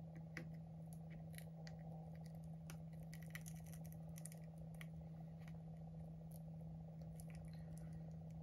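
Faint, irregular clicks and scrapes of a prying tool working at the edge of an iPhone 11 battery that is still held by its adhesive, over a steady low hum.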